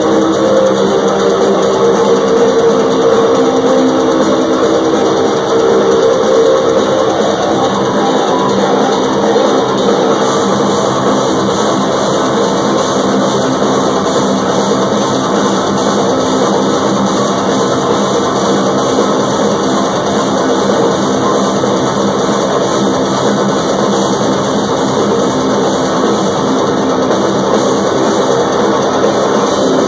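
Rock band playing live at a loud, steady level: electric guitars, bass and drums, heard from among the audience.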